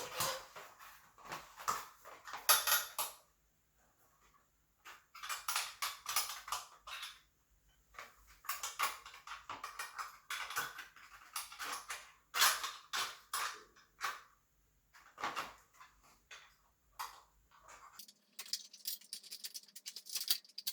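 Metal bicycle parts and loose hardware being handled during assembly, clicking and clattering in bursts with short pauses between them.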